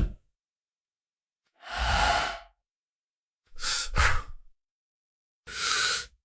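A person breathing heavily through the mouth: separate loud breaths about every two seconds with silence between, the third broken into two quick parts.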